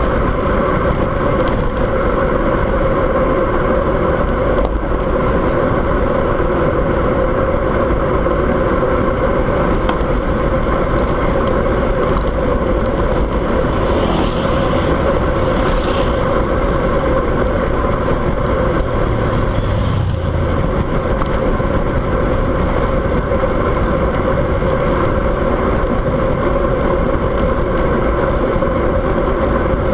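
Steady, loud road and wind noise of a vehicle running down a mountain road, with three short hisses around the middle.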